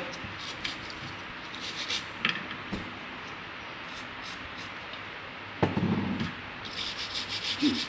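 Small tool handling over a phone circuit board with a dull knock about five and a half seconds in, then a brush scrubbing the board in quick strokes near the end.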